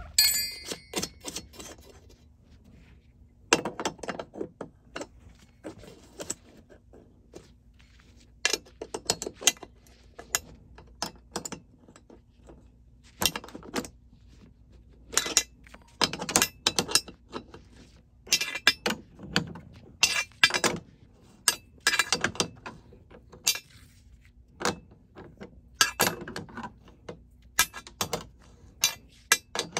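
Steel wrenches clinking and clicking against the hex nuts of a door frame's threaded height-adjustment bolt, in scattered bursts as the nuts are loosened and turned.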